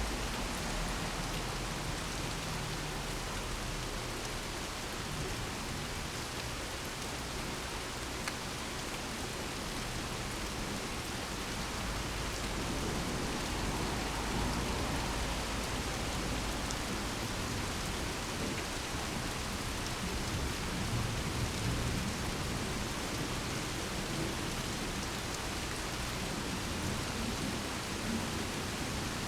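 Steady rain falling, with low thunder rumbling at times underneath.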